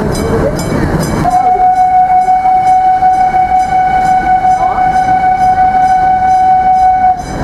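Narrow-gauge forest-railway locomotive sounding one long, steady signal tone that starts about a second in and cuts off suddenly near the end. Under it is the rumble and rhythmic clicking of the train rolling along the track.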